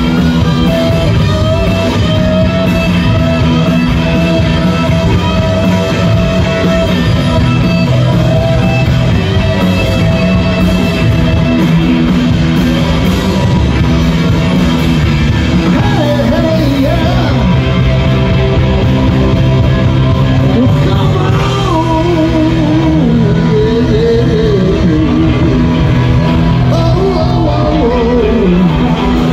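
Live rock band playing loudly through a stage PA: electric guitars, bass and drums, with a singer.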